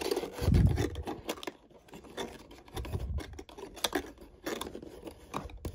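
Stiff cardboard scraping and rustling as fingers pry at and pull open a small box door of a cardboard advent calendar, with scattered scratchy clicks and a couple of dull bumps about half a second and three seconds in.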